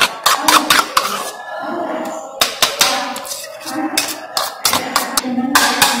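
A metal spoon knocking and clinking against a glass bowl while beating wheat starch paste, irregular strikes a few times a second with a short pause about a second in. The beating makes the restoration paste smooth and raises its viscosity.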